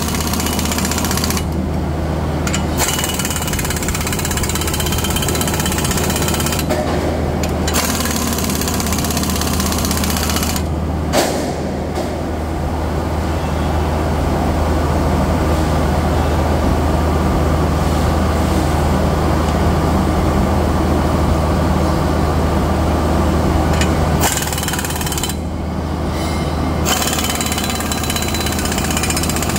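Loud, steady industrial mill machinery noise with a continuous low hum. A higher rattling hiss drops out briefly about four times.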